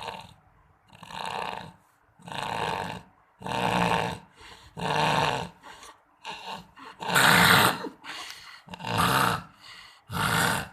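Loud snoring: rasping snores come in a steady rhythm about one every second and a half, each swelling and fading like a motorcycle being revved. The loudest snore comes a little past the middle.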